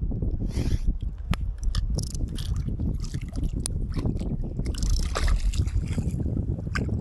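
River water splashing and sloshing close to the microphone in short, irregular bursts with sharp little clicks, over a steady low rumble.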